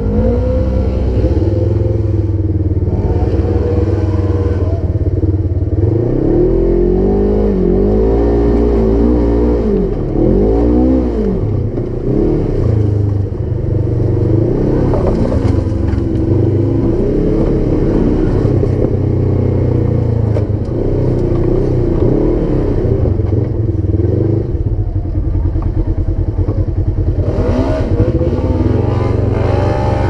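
Polaris RZR side-by-side's twin-cylinder engine revving hard on a hill climb, its pitch rising and falling again and again as the throttle is worked.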